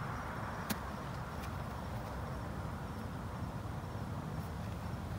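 Steady outdoor background noise, a low even hush with no clear source, with a faint sharp click under a second in.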